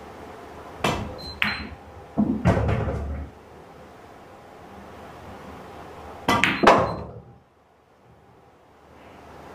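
Pool balls being played: a cue tip strikes the cue ball and balls click together, then a heavier low thud as a ball drops into a pocket. About six seconds in, another cue strike and a sharp ball-on-ball click.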